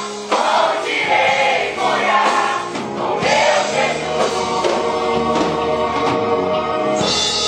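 A choir singing a gospel worship song.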